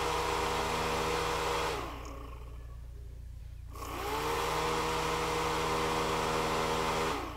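Small cooling fan of a homemade laptop cooling pad whirring steadily. About two seconds in it winds down with falling pitch, about four seconds in it spins back up with rising pitch, and it winds down again near the end.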